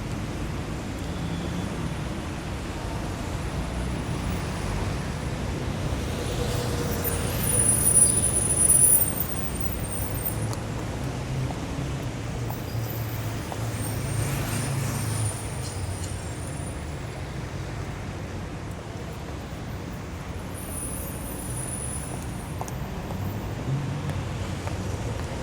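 City street traffic: a steady rumble of passing cars and heavier vehicles, with one louder vehicle passing about a third of the way in and a few brief high squeals.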